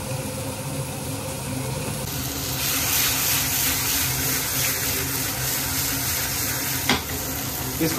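Fish frying in a pan, sizzling steadily as it is cooked until crisp; the hiss grows brighter about two seconds in. A steady low hum runs underneath, and there is a single sharp click near the end.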